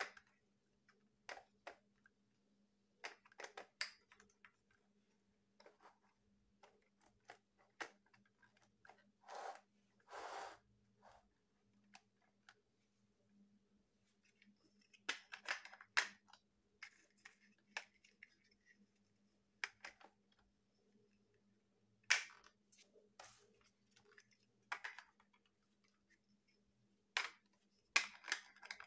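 Plastic toy building blocks being handled and pressed together: irregular clicks and clacks as bricks snap onto studs and knock against each other, with a couple of longer scraping sounds about ten seconds in.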